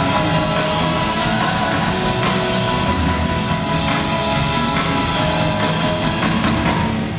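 Live band playing loudly: electric guitars, bass, keyboard and fiddle, with regular drum strokes. The music dies away right at the end.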